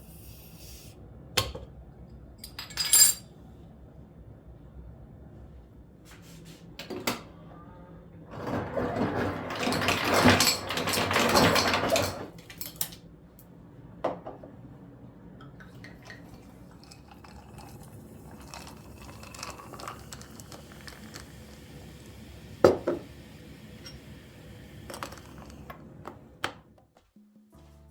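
Dishes and utensils clinking and knocking, with a sharp, ringing clink about three seconds in. In the middle comes a louder, noisy stretch of about four seconds.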